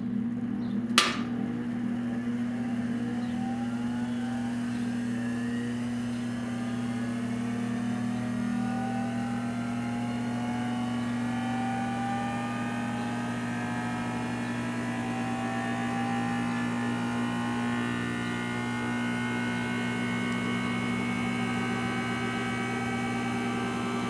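Thunderbolt 1000ATSC siren's electric chopper motor running on its own, a steady electric hum with a whir above it that slowly rises in pitch as the chopper spins up. There is a sharp click about a second in.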